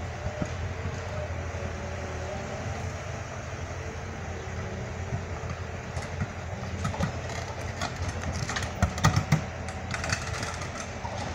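Diesel engine of a loaded Ponsse Wisent forwarder running steadily as the machine crawls forward on its bogie tracks. From about six seconds in, a run of sharp knocks and clanks joins the engine, loudest around nine seconds.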